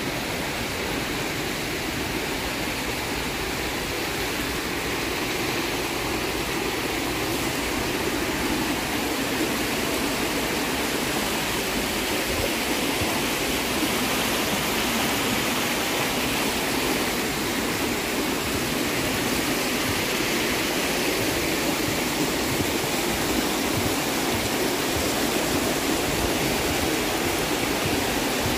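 Rushing water, a steady, even rush of flowing stream water.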